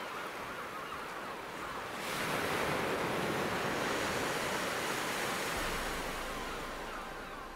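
Sea waves washing, with wind: a steady rushing that swells about two seconds in and eases off toward the end.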